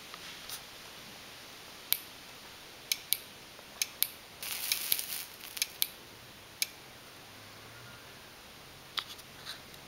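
A series of sharp, irregular clicks, about a dozen, with a brief burst of crackling about halfway through.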